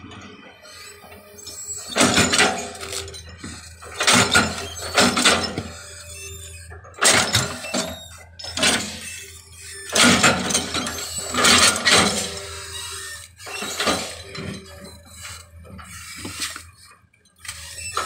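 Hitachi excavator at work: a steady low engine hum under a run of loud crashes of material breaking and falling, about a dozen in all, spaced a second or two apart.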